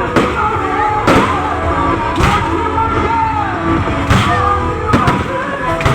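Fireworks going off close by, about six sharp bangs a second or so apart, over loud music.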